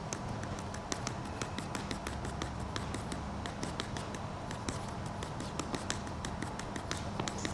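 Hand-made ink marking tool tapping and dabbing on paper, irregular quick taps, a few each second, over a steady background hiss and hum.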